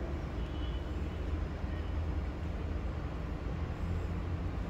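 Steady low hum with faint hiss: background room noise during a pause in speech.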